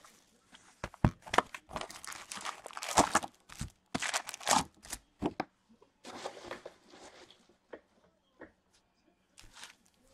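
Wrapping and cardboard of a hobby box of foil-wrapped hockey card packs being torn open and the packs pulled out and set down, with quick crackles and taps of foil and card for the first five seconds or so, then only scattered soft rustles and ticks.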